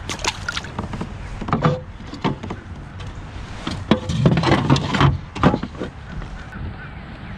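Knocks and thumps of handling aboard a fishing kayak: a run of short, sharp hits against the hull and gear, busiest about four to five seconds in.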